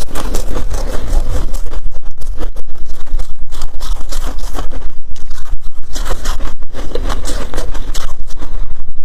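Close-miked crunching of freezer frost: a rapid, irregular run of crunches with a low rumble beneath.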